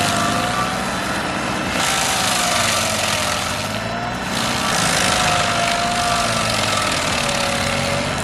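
Stump grinder running hard: its engine note wavers up and down as the cutting wheel loads and unloads, over a steady grinding hiss of wood being chewed.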